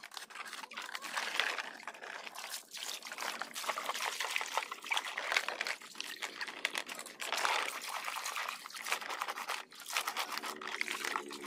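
Water trickling and splashing as hands wash a plastic toy dump truck in shallow water, with small knocks and rubbing of the plastic body.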